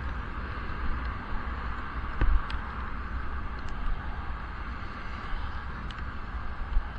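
Wind rumbling against a helmet-mounted action camera sealed in its waterproof case while cycling, a steady low buffeting over a hiss of wet road and traffic, with a few faint ticks.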